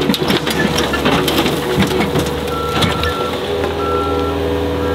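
Skid steer engine running steadily while its bucket dumps a load of dirt into a small metal trailer: a continuous rushing, rattling pour of soil and clods.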